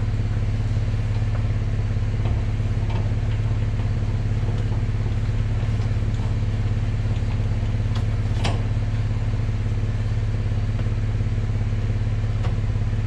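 Pickup truck engine idling with a steady, even hum, with a few light metallic clicks from the trailer hitch and a sharper click about eight and a half seconds in.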